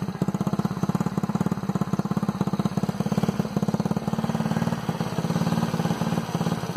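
Kuba RX-9 motorcycle engine idling steadily through its original stock exhaust, a rapid, even stream of exhaust pulses.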